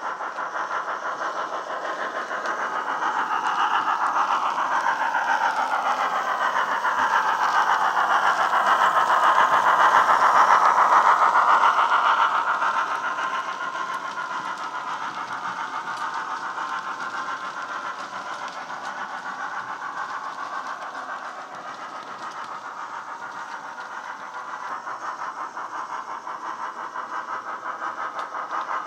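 Sound-fitted Hornby Crosti 9F model steam locomotive running with its DCC sound decoder playing steam exhaust beats through its on-board speaker. It grows louder as it passes, peaking about ten seconds in, then fades to a steadier level as it moves away.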